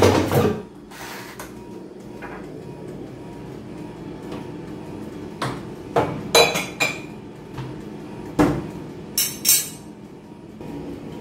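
A clunk as the air fryer basket is pushed back in at the start, then several separate knocks and sharp clinks of kitchenware, over a steady hum from the running air fryer.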